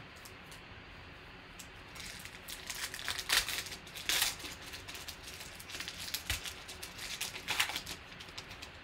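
Foil trading-card pack being torn open and crinkled as the cards are worked out of the wrapper. The crackling comes in irregular bursts that start about two seconds in and are loudest around three to four seconds in.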